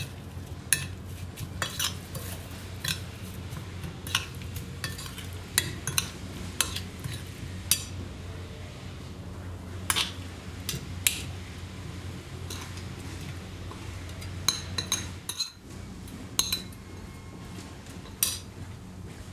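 Metal spoon stirring cucumber salad in a glass bowl, with irregular sharp clinks of spoon against glass, and further clinks as the salad is scraped out onto a plate. A steady low hum runs underneath.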